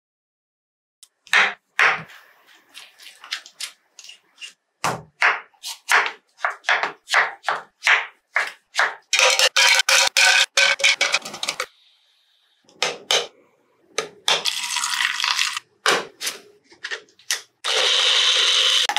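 A knife chops papaya on a wooden cutting board in a run of short, sharp strokes. Then ice and papaya pieces clatter into a plastic blender jar, and near the end the mixer-grinder motor starts up and runs steadily.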